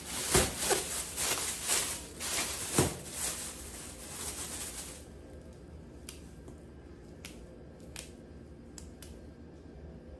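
A thin plastic bag rustling and crinkling as it is handled. It then gives way to a quieter run of single crisp snaps, about one a second, as long beans are broken by hand.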